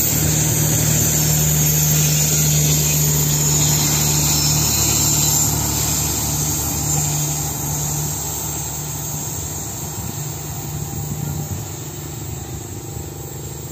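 Passenger train's coaches rolling past on the rails: steady wheel-and-track noise with a low hum, fading gradually from about five seconds in as the end of the train moves away.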